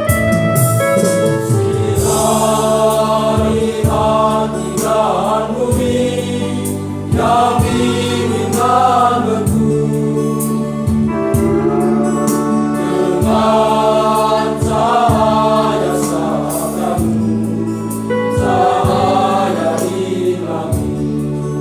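High school choir singing a Christian hymn in several-part harmony, phrases of held notes over steady low tones.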